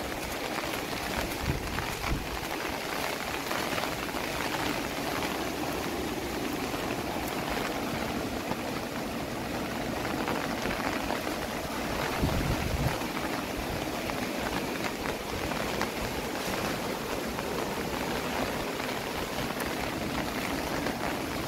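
Steady rushing, splashing water noise, as of floodwater or heavy rain, with a few low thumps about twelve seconds in.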